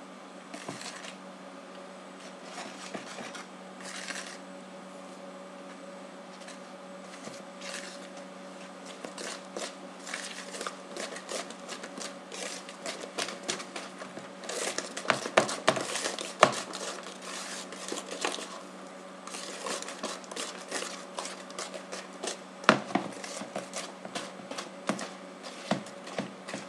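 Wire balloon whisk scraping and tapping against a plastic mixing bowl as thick cake batter is mixed by hand: a quick, irregular clatter that gets busier after several seconds, with a few sharper knocks, over a steady low hum.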